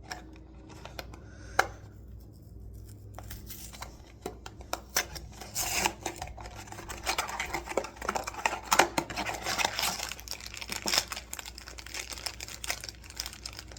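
Small mystery-figure blind box being torn open and its packaging crinkled and handled: a single sharp click about a second and a half in, then dense rustling, tearing and clicking from about three seconds in.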